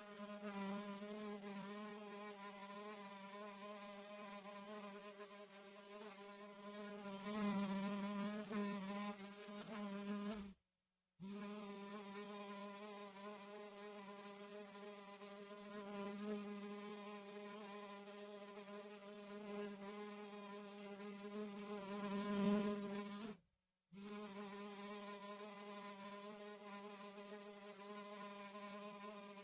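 Fly buzzing in flight: a steady pitched drone that swells louder a few times and cuts out twice for about half a second.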